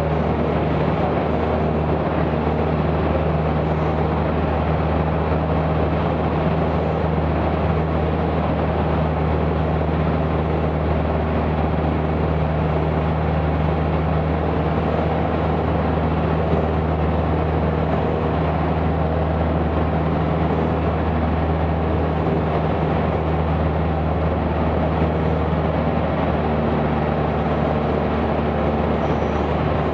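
Cessna 172's piston engine and propeller running steadily at cruise in level flight, heard inside the cabin as a constant low drone with a hiss of airflow over it.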